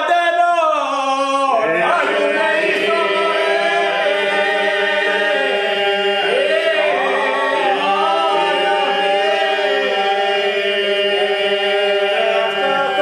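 Albanian men's folk group singing a cappella in polyphony. A lead voice sings alone for the first second or so. Then the others come in with a steady held drone under one or two ornamented melody voices.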